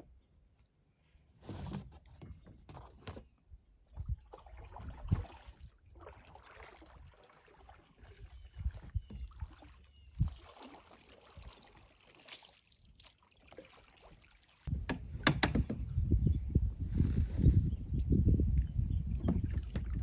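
Kid's plastic kayak and paddles being handled: scattered knocks and scrapes against the hull. About three-quarters of the way through, a louder, continuous rumble sets in.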